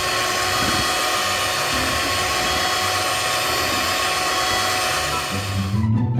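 Electric mixer running at high speed, its beaters whipping egg whites in a stainless steel bowl: a steady motor whirr that stops just before the end.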